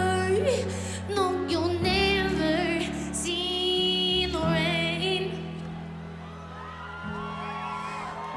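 Live pop performance: a woman's lead vocal over steady, sustained low backing chords and bass, with a few long, wavering held notes.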